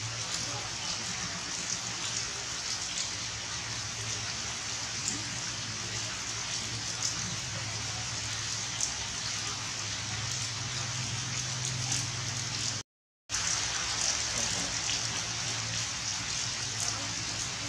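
Steady rain falling, a constant hiss with scattered drips. The sound drops out completely for a moment about thirteen seconds in.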